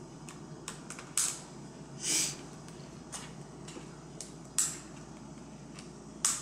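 Irregular sharp plastic clicks and a short scrape from an Apple iBook G4 keyboard being pried and pressed at its locking tabs, which have not yet released.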